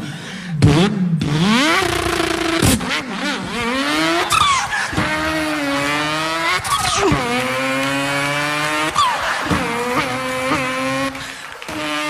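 A man imitating a racing car engine with his voice: a pitched engine note that climbs steadily, drops sharply and climbs again several times, like a car shifting up through the gears, with short swooping squeals in between.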